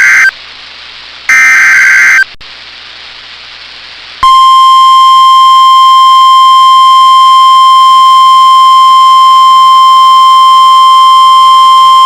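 NOAA Weather Radio emergency alert signalling a new warning. First come two brief, harsh digital data bursts about a second apart: the end of the SAME header that encodes the alert. About two seconds later the 1050 Hz warning alarm tone starts, one loud steady tone that holds for about nine seconds.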